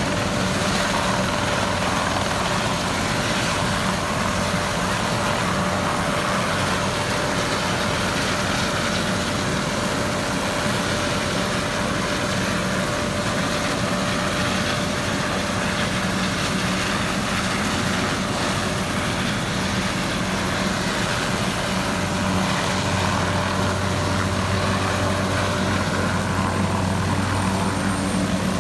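Helicopter turbine engine running steadily on the ground with a continuous hum. The low hum grows stronger about 23 seconds in, and a faint high whine rises near the end.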